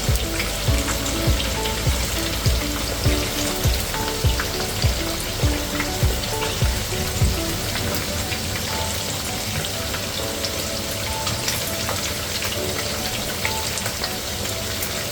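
Rice-flour-coated chicken wings deep-frying in hot oil, a steady sizzle. Soft background music with short notes plays under it, its regular beat dropping out about halfway.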